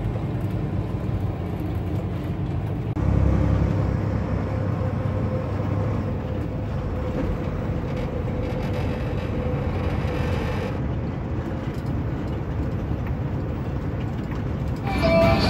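Steady engine and road noise inside a truck's cab while driving on a freeway. The rumble gets louder about three seconds in.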